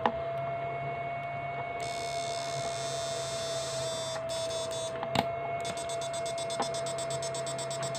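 Electrofishing inverter running on a test load: a steady low hum and a constant mid-pitched whine, with a high, rapidly pulsing buzz from the switching circuit that comes and goes, and two sharp clicks, one at the start and one about five seconds in. The unit is working normally, its pulse output checked as fine.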